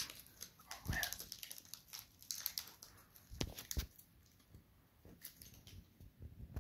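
Scattered light clicks, knocks and faint crinkling of plastic packaging as a new RC crawler is handled and unpacked. The louder knocks come about a second in and again around three and a half seconds.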